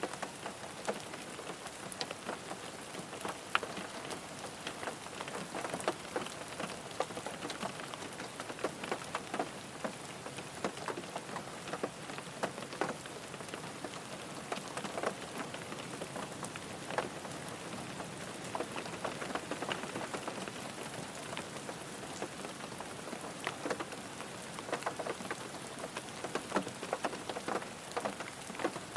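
Steady rain falling on a car, with a constant hiss of rain and many individual drops striking the body in sharp, irregular ticks.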